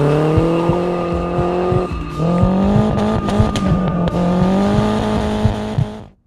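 Mercedes 190's turbocharged M111 2.3 litre four-cylinder engine accelerating hard through its exhaust, the pitch climbing, dropping about two seconds in as it shifts up, then climbing again. The sound cuts off suddenly near the end.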